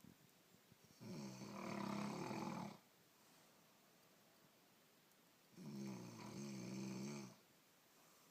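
A person snoring in their sleep: two long snores, each nearly two seconds, about four and a half seconds apart.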